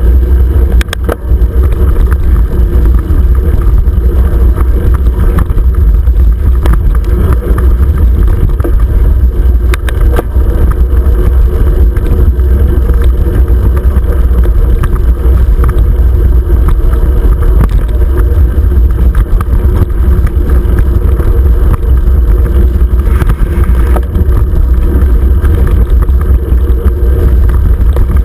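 Loud, steady rumble of wind buffeting and trail vibration through a handlebar-mounted GoPro as a 29er mountain bike rolls along dirt singletrack, with occasional sharp clicks and knocks from the bike rattling over bumps.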